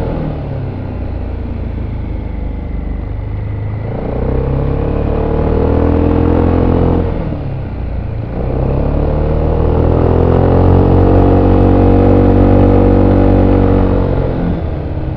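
VOGE SR4 MAX scooter's engine through its stock exhaust, heard on board while riding: it drops off throttle at the start, pulls again about four seconds in, backs off around seven seconds, then picks up and holds a steady pull before easing off near the end.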